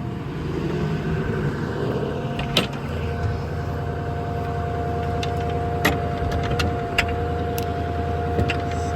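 A 6.4 Power Stroke diesel running with its PTO-driven hydraulic pump engaged, giving a steady whine over the engine's drone. Several sharp metallic clicks come through, at about two and a half, six and seven seconds in, typical of the crane's hydraulic controls being worked.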